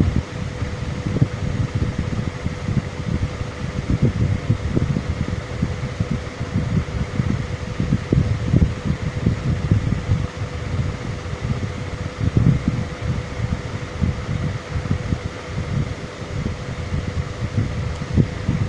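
An electric fan running steadily, a whirring noise with a constant hum, with irregular low rumbling buffets underneath.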